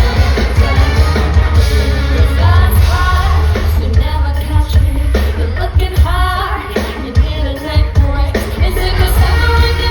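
Loud amplified live pop music: a woman singing over a heavy, steady bass line.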